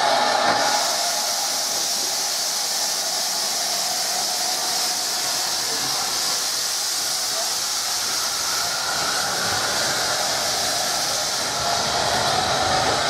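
SE&CR No. 65 steam locomotive hissing steam, a loud steady hiss that starts suddenly about half a second in. It comes as the engine moves off, with steam pouring from its front end, typical of open cylinder drain cocks.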